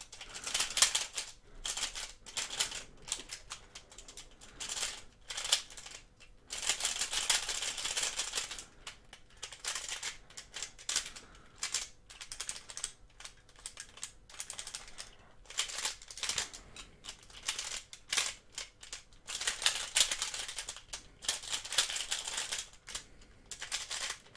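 Cyclone Boys Pyraminx v2 being turned by hand for its first turns out of the box: light plastic clicking in rapid bursts as the layers and tips snap into place, with short pauses between bursts.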